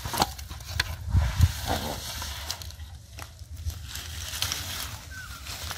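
Water hyacinth leaves and stems crackling and crunching as they are handled and pushed aside in wet mud, with a few sharp clicks and low thumps, loudest between one and two seconds in.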